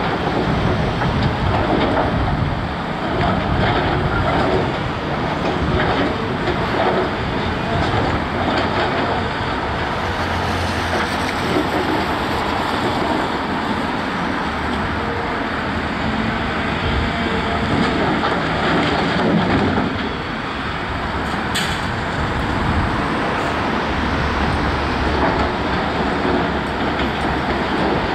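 Heavy diesel earthmoving machinery running: a loud, steady engine rumble with rattling.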